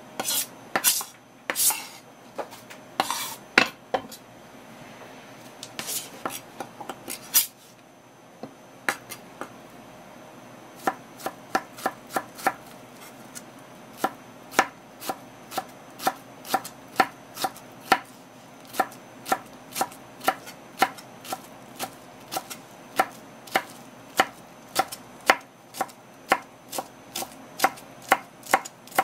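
Kitchen knife slicing halved okra pods on a cutting board: a steady run of sharp taps as the blade meets the board, about two or three a second. The first several seconds hold a few louder, irregular knocks and scrapes before the even slicing rhythm settles in.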